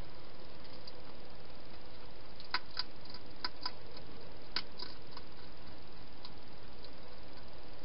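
A wild hedgehog eating from a food bowl, heard as a quick run of sharp clicks and crunches about two and a half seconds in that stops about two seconds later, over a steady background hiss.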